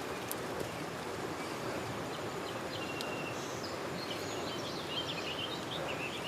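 Steady rushing of a small creek, with small birds chirping now and then, more of it in the second half.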